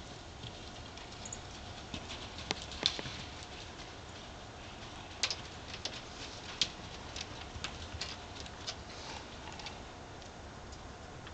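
Horses' hooves striking the arena footing as they run, heard as scattered, irregular sharp knocks, over a steady low wind rumble.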